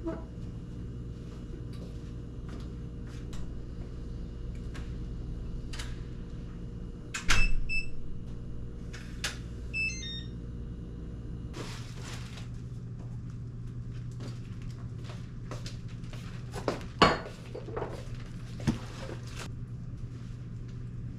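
A door shutting with a heavy knock, then short electronic beeps and a descending run of tones from an electronic door lock as it locks. Under it runs a steady appliance hum, and later come a few sharp clicks and knocks.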